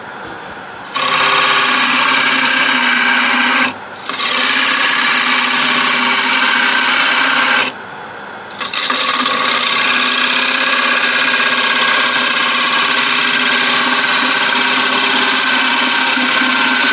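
Bowl gouge cutting the inside of a spinning acacia bowl on a Laguna wood lathe, hollowing the bowl by push cut. The cut is a loud hiss in three passes, with short breaks about 4 and 8 seconds in, over the lathe's steady hum.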